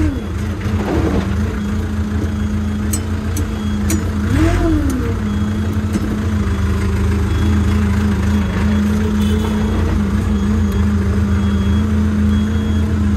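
Iseki TR633 tractor's diesel engine running steadily as the tractor is driven along, with a short rise and fall in pitch about four seconds in.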